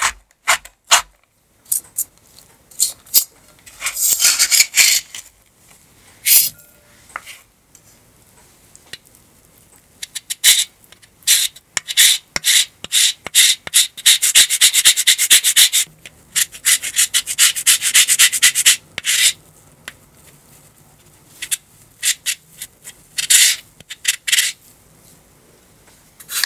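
A knife chopping on a wooden cutting board for about a second, then a lemon scraped over a fine rasp grater in quick, repeated strokes: a short run, a long dense run in the middle, and another short run near the end, with pauses between.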